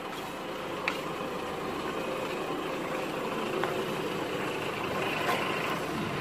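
Delivery box truck's engine idling steadily, with an even hiss behind it and a few faint clicks.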